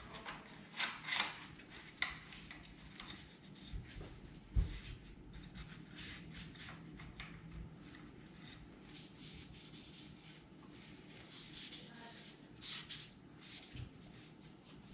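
Rubbing and wiping of a cloth over the parts of a Browning BAR Mark 3 rifle as they are cleaned with Ballistol, with small clicks and handling knocks of the metal parts and a single low thump about four and a half seconds in.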